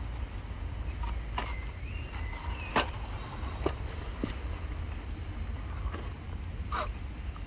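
Vanquish VS4-10 Pro RC rock crawler working its way down wet wooden planks: several knocks of tyres and chassis on the wood, the loudest about three seconds in, with a couple of short high-pitched squeaks, over a steady low rumble.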